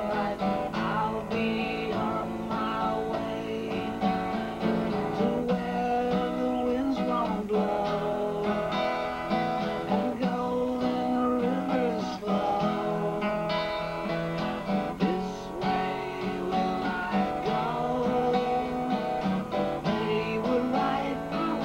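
Steel-string acoustic guitar played solo, an instrumental passage of continuous picked and strummed notes.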